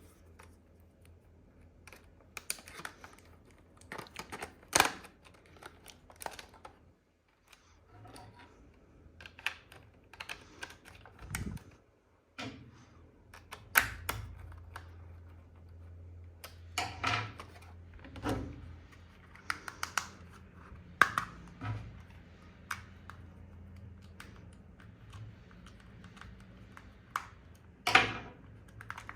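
Irregular clicks, snaps and short rustles of hands handling a boxed toy and its packaging, over a low steady hum.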